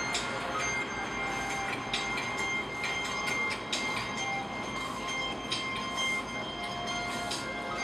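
Aerosol spray paint cans hissing in short bursts, each a fraction of a second long, over a steady background hum with faint thin whining tones.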